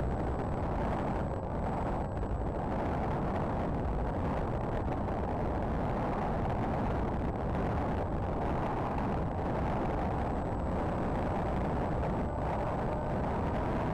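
Electric motor and propeller of a Predator Z-51 RC plane in flight, heard through its small onboard camera's microphone along with the rush of air: a steady, even noise.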